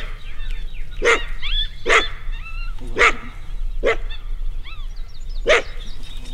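A dog and a coyote facing off: about six sharp barks, roughly one a second, with high, wavering yips and whines in between.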